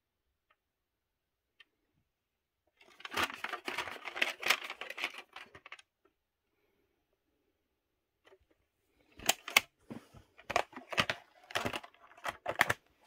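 A VHS cassette and its plastic clamshell case being handled: a few seconds of scraping and rustling, then after a pause a run of sharp plastic clicks and snaps as the case is worked shut.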